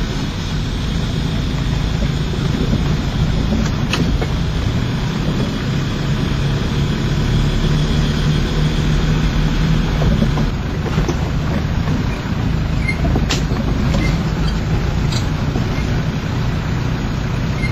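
Steady engine and road noise heard inside a car's cabin, with a few light clicks about 4, 10 and 13 seconds in.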